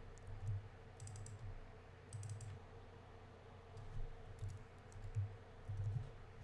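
Faint computer keyboard typing: short runs of keystroke clicks with pauses between them, as code is typed in.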